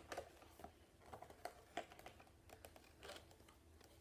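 Faint, irregular taps and scrapes of fingers handling a cardboard box, a handful of light clicks spread through an otherwise quiet room.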